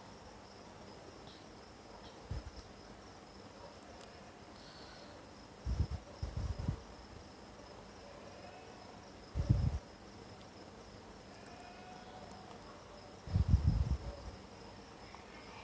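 A steady, high, thin insect trill goes on throughout, with four dull low thumps scattered through it; the loudest thump comes about two-thirds of the way through.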